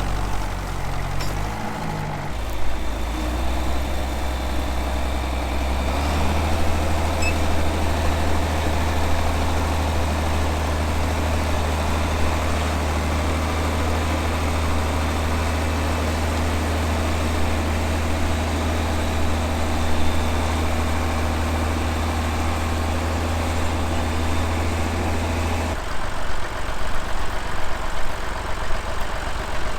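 Tractor diesel engine running steadily; its note changes about six seconds in and again shortly before the end.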